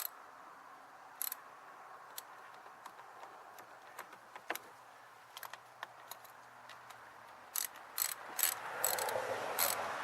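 Socket ratchet clicking in short runs and single clicks while a loose battery cable connection is worked on, busiest in the last couple of seconds.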